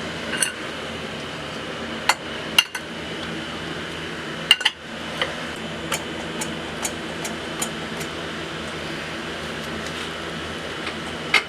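Metal hand tools knocking and clinking against a turbo exhaust manifold that is stuck on its studs. A few sharp metallic strikes come in the first half, then lighter scattered clinks, over a steady background hum.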